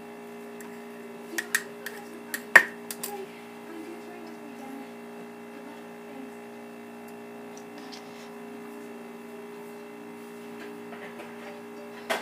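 A quick run of sharp clicks and taps from small objects being handled, one much louder than the rest, as food coloring is added to slime. A steady electrical hum runs underneath.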